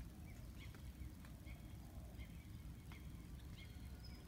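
Faint, scattered bird chirps and short calls over a low, steady background rumble.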